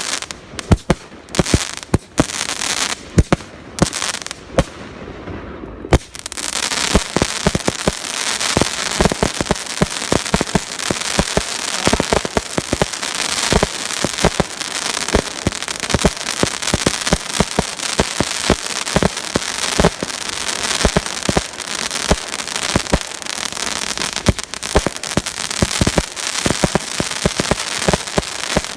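Fireworks going off: separate sharp bangs for the first few seconds, then, about six seconds in, a dense, continuous crackling with many pops.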